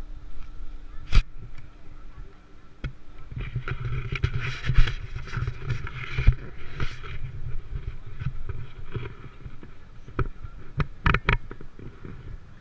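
Muffled handling noise from a GoPro sealed in its waterproof housing as it is gripped and carried: dull rumbling with several sharp clicks and knocks, and a busier stretch of rumble in the middle.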